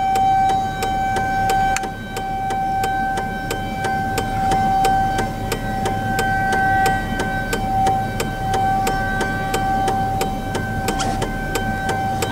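Nuclear plant outdoor warning siren sounding a steady test tone that wavers and dips briefly every second or two, over the hum of a running pickup engine and a fast regular ticking.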